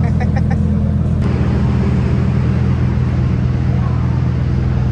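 Steady low hum of a running vehicle, with a run of four quick high beeps about a quarter second in.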